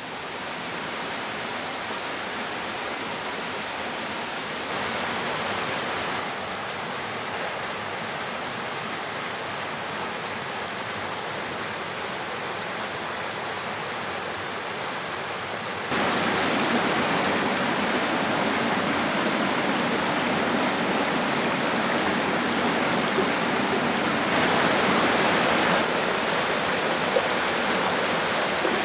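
Shallow stream flowing over rocks: a steady rush of running water that gets abruptly louder about halfway through.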